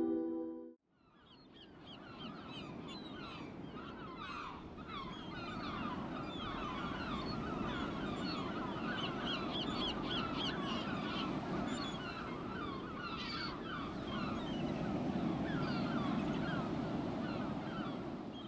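A large flock of birds calling, many overlapping honks and chirps over a low rushing background, fading in after a brief tail of music cuts off in the first second.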